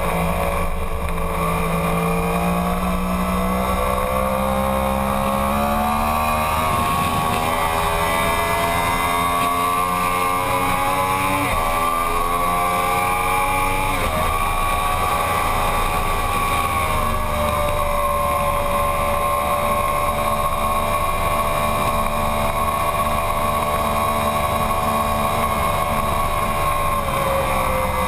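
Yamaha sportbike engine running hard on a racetrack over steady wind rush: the pitch dips and climbs through the revs, drops sharply twice with quick upshifts about 11 and 14 seconds in, holds steady, then falls near the end.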